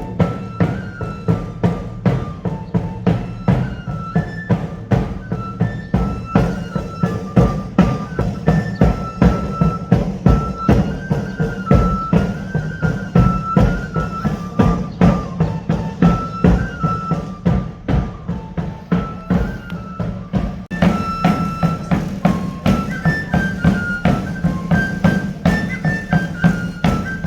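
Traditional pipe-and-drum music: a high pipe plays a stepping melody over steady, regular drum beats.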